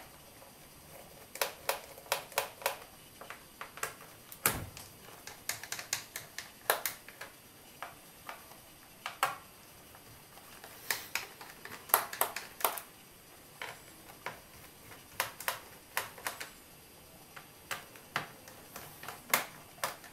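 Irregular light clicks and ticks of a small screwdriver and loosened screws on the plastic bottom case of an Acer Aspire 5680 laptop as the screws are taken out, coming in scattered clusters, with one duller knock about four and a half seconds in.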